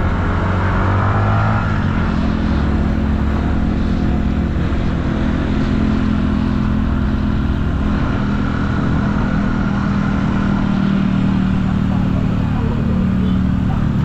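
Motorcycle engine running steadily, under a constant rush of wind and road noise.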